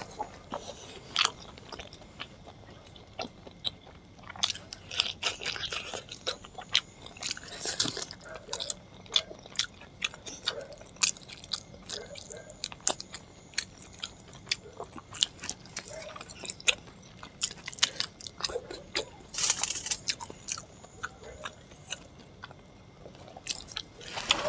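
Close-miked chewing and wet lip-smacking as chicken curry and luchi are eaten by hand, with many irregular sharp mouth clicks and smacks.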